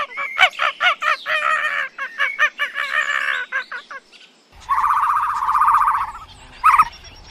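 Bird calls, fowl-like: a quick run of chirping, clucking calls, then after a short pause one longer call and a brief one.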